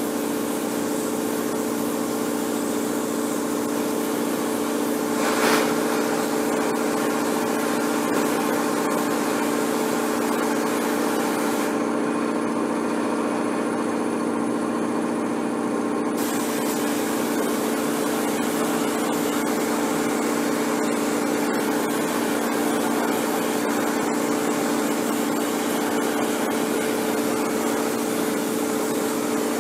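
A motor running with a steady, unchanging hum; one brief knock about five and a half seconds in.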